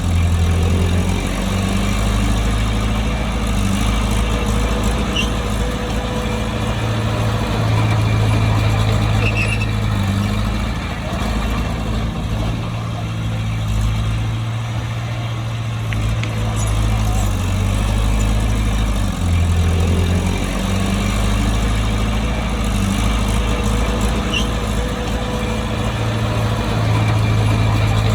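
A bulldozer's heavy diesel engine running continuously while working. Its note steps up and down several times as the load changes.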